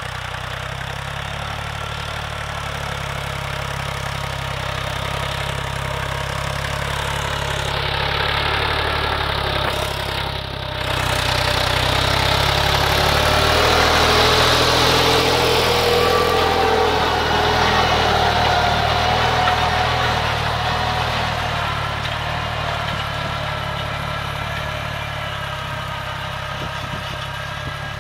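Diesel farm tractor running steadily while pulling a rotavator through the soil. It grows louder as it passes close about halfway through, then fades as it moves away.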